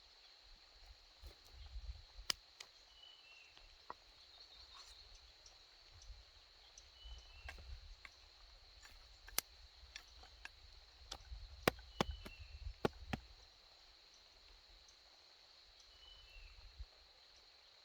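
Rural ambience: a steady high insect drone, and a short falling two-note bird call repeated four times. Scattered sharp clicks and knocks, loudest about twelve seconds in, come and go over low rumbling noise.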